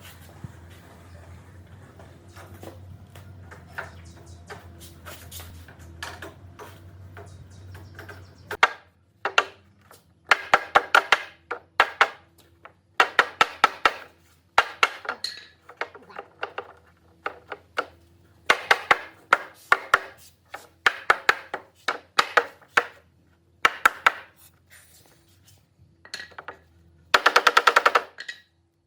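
Bursts of rapid, sharp knocks, several strokes to each burst, starting about a third of the way in and going on and off, with a dense run near the end. A low steady hum lies under the first third.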